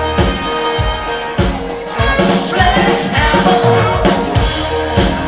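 Band playing a rock-pop song: a drum kit beat under a held keyboard note, with a singer's voice coming in about two seconds in.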